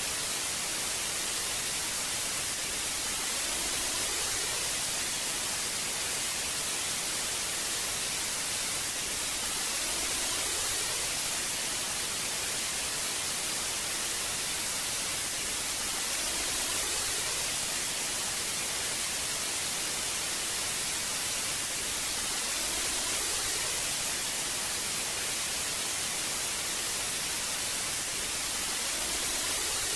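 Old analogue television static: a steady hiss, strongest in the high treble, swelling slightly about every six seconds.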